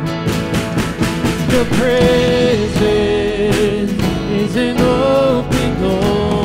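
Worship band playing live, with a singer over drum kit, electric guitar, bass guitar and keyboard, and drum hits keeping a steady beat.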